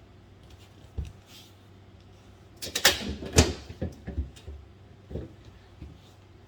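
Knocks and clunks of fridge shelves and bins being handled and taken out: one knock about a second in, a burst of clattering about three seconds in, and another knock after five seconds.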